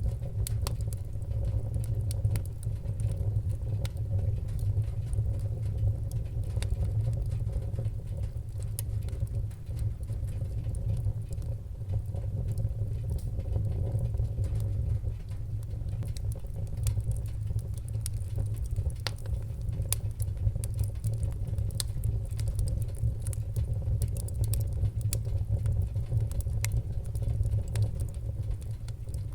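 Fireplace fire crackling: many sharp, irregular pops and snaps over a steady low rumble of the flames.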